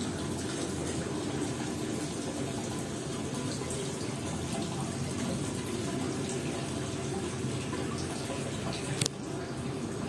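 A steady, low rushing noise, with a single short click about nine seconds in.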